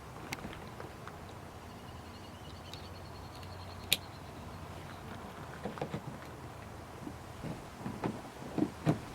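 Small plastic clicks and taps from a bumper side marker light being handled and fitted into a car's front bumper. There is a sharp click about four seconds in and a run of light knocks near the end, over a steady low hum.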